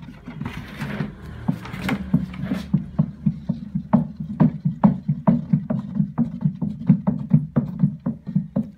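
A wooden stick stirring liquid-soap mixture in a large plastic drum. The liquid sloshes, and from about three seconds in the strokes settle into an even rhythm of about two to three a second, each with a knock of the stick against the drum.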